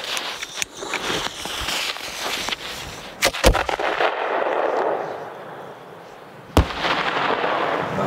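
A 4-inch aerial display shell fired from a mortar tube: a sharp lift shot about three and a half seconds in, a rushing hiss as it climbs, and a loud bang as it bursts about three seconds later, followed by a long noisy tail. Before the launch, crunching steps in snow.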